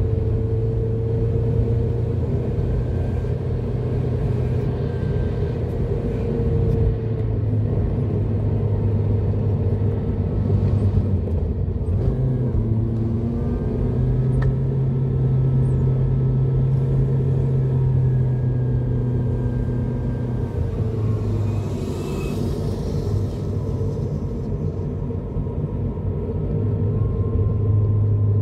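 Car engine running and tyre noise from inside the cabin while driving, a steady low hum whose pitch steps up and down a few times, with the car climbing a hill partway through.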